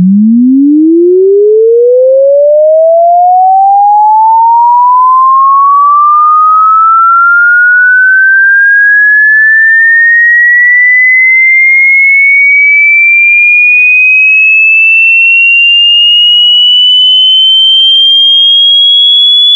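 Electronically generated sine-tone sweep: one very loud, pure tone that rises steadily in pitch from a low hum to a high whistle. The pitch climbs fast at first and more slowly toward the end.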